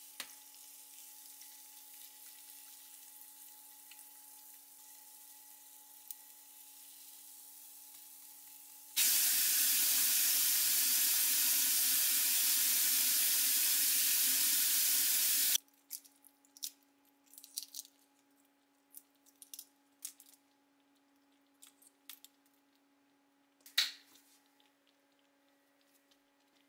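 Battered mini hot dogs deep-frying in a small pot of oil, a faint steady sizzle. About nine seconds in a loud, even rushing hiss starts suddenly and cuts off just as suddenly some six seconds later. After that come scattered light clicks and knocks of kitchenware, one sharper knock near the end.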